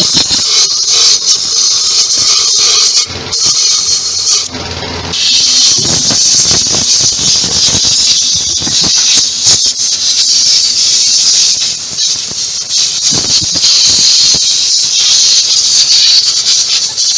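Compressed-air spray gun with a canister hissing in long, loud blasts as it sprays cleaning fluid through a carburetor, the air breaking off briefly twice a few seconds in.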